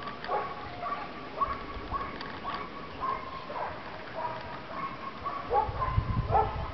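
An animal calling over and over in short, high, yelping calls, a few a second, some held briefly and some sliding down in pitch. A low, uneven rumble comes in near the end.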